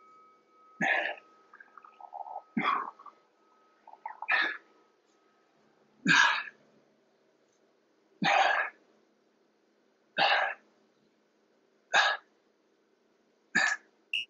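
A man's hard, breathy exhalations in time with each repetition of a strenuous exercise, about one every two seconds, with softer in-breaths between them.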